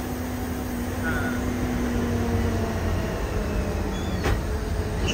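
Steady engine and road noise inside a moving air-conditioned bus on the highway, with a low steady hum and a faint click about four seconds in.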